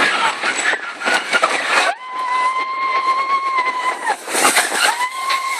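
Big Thunder Mountain Railroad mine-train roller coaster rattling along its track, with a rider's long, steady-pitched scream about two seconds in and a shorter one near the end.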